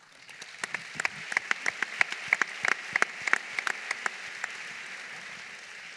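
Audience and panel applauding: an even wash of clapping with sharp, close hand claps standing out, dying down near the end.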